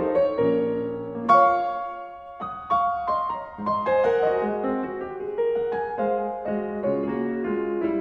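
Background piano music: a slow melody of held notes over chords, with a short lull about two seconds in.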